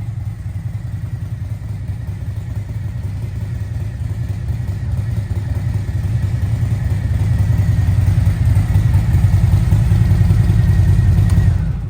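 Harley-Davidson Milwaukee-Eight 117 V-twin with Stage IV CNC-ported heads running at idle through a Vance & Hines exhaust, a steady deep pulsing rumble that grows somewhat louder in the second half and cuts off sharply at the very end.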